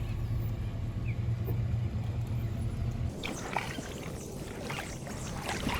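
A steady low hum that cuts off about three seconds in, followed by light water splashing with small clicks and knocks.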